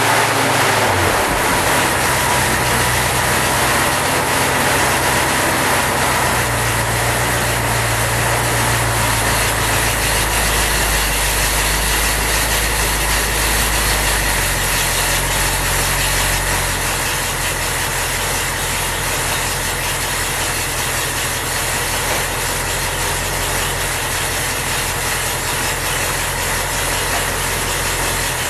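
The rebuilt 1927 Cadillac 314 flathead V8 engine running steadily at idle, its speed shifting about a second in and settling a little lower and quieter around sixteen seconds in.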